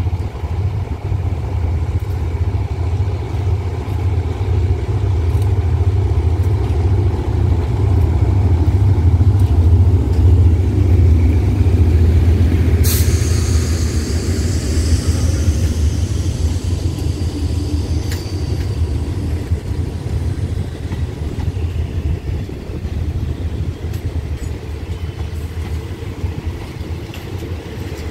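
GE diesel-electric locomotive GEA 4538 passing slowly with a train of coaches: a deep diesel engine rumble that grows as it approaches and is loudest about ten seconds in, then eases as the coaches roll past on the rails. About halfway through there is one sharp crack followed by a few seconds of high-pitched noise.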